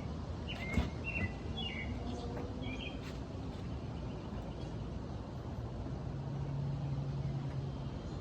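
Outdoor background noise with a few short bird chirps in the first three seconds, and a low steady hum that comes in near the end.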